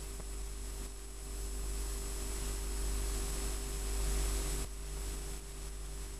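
Steady electrical hum and hiss from an old analogue videotape recording of a TV broadcast. The hiss drops noticeably about four and a half seconds in.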